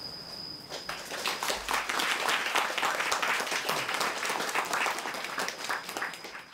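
Audience applauding, starting about a second in after the last note dies away.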